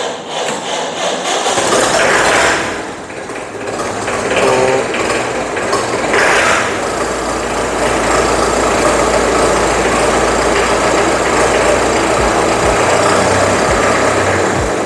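1980 International 444 tractor's indirect-injection diesel engine being cranked over slowly by the starter on a weak battery, catching about seven seconds in and then running at a steady idle.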